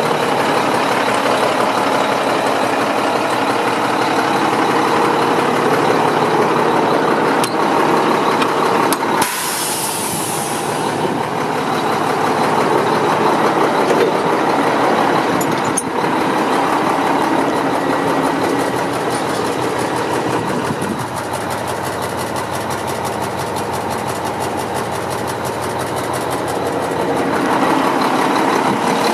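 1995 Mack CH613 tractor's diesel engine idling steadily, with a brief hiss about nine seconds in. The running gets louder near the end.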